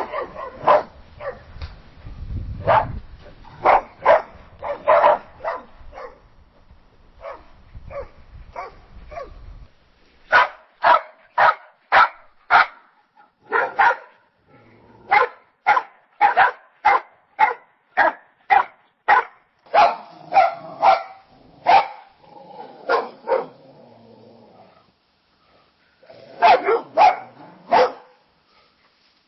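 Dogs barking in series of short, sharp barks. In the middle there is a run of evenly spaced barks, about two a second. There is a brief lull near the end before more barking.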